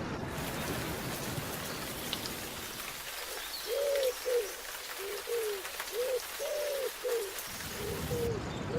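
Steady rain, with a bird giving a run of short, low, arched calls, about two a second, starting about four seconds in.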